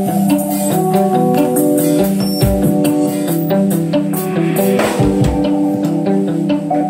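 A live rock band plays electric guitar, bass guitar and a drum kit together, with sustained ringing guitar notes over busy drumming.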